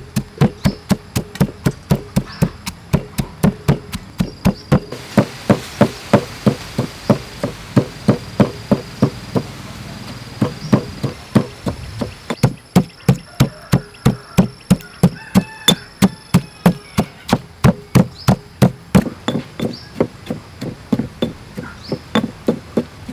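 Stone pestle pounding chili, garlic and sugar in a stone mortar: a steady run of thuds, about three a second, with a short break about twelve seconds in.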